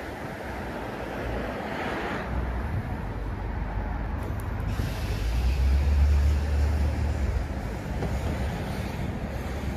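Steady rumble of passing traffic, swelling to its loudest about five to seven seconds in as a vehicle goes by.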